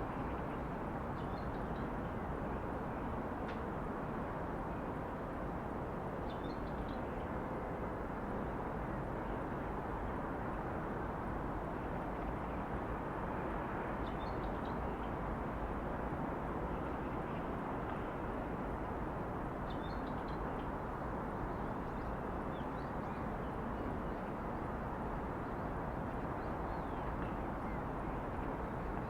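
Steady hum of distant city traffic, with a few short, faint bird chirps now and then.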